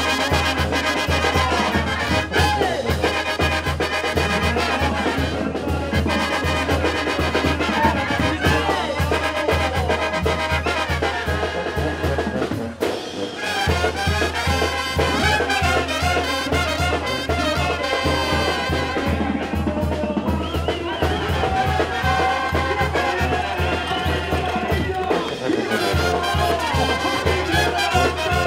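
Mexican banda brass band playing, with trumpets and trombones over a low bass line that pulses steadily. The bass drops out briefly about halfway through and again near the end.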